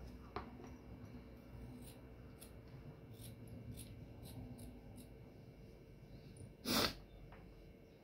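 Scissors snipping through felt: faint, irregular clicks. A louder short rush of noise, like a sniff, comes about two-thirds of the way through.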